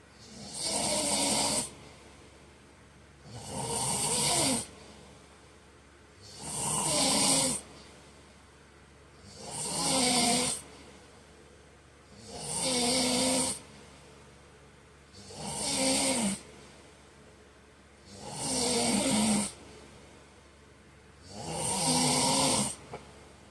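A man snoring in deep sleep, loud and regular: eight snores, about one every three seconds, each lasting a second or so, with quiet breathing between.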